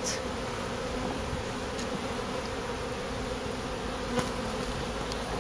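Honeybees buzzing steadily as a dense mass: the hum of a colony whose comb has been opened up and is being moved into a hive.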